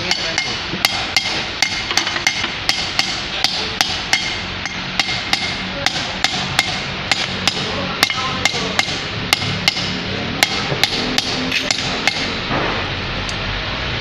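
Hammer tapping a metal drift to drive a bearing into the housing of a Kawasaki NV270 hydraulic main pump: a steady run of sharp metallic strikes, two or three a second, stopping near the end.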